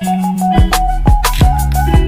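Background music with a steady beat: falling kick-drum hits, quick hi-hat ticks and a held bass line under a melody.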